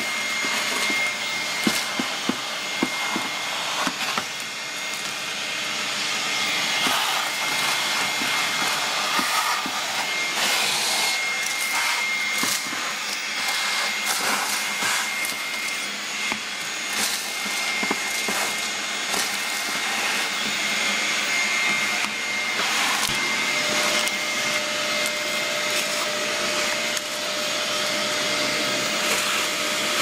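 Ridgid wet/dry shop vacuum running steadily with a thin whine, its hose sucking leaves and debris out of a heat pump's base pan to clear the clogged drain holes. Frequent sharp clicks sound throughout.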